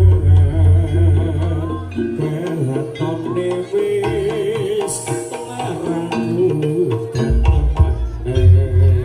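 Live jaranan gamelan music: a wavering melody line over dense drumming and percussion. Deep sustained low tones sound in the first two seconds and again near the end.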